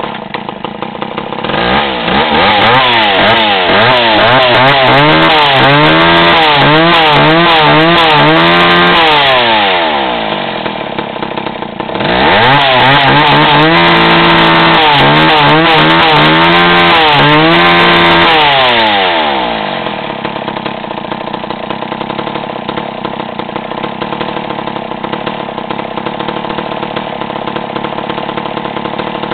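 McCulloch Mac 10-10 two-stroke chainsaw running very loud. It is revved up to a scream twice, the throttle pumped so the pitch wavers up and down, and drops back between the two runs. It then settles into a steady idle for the last third.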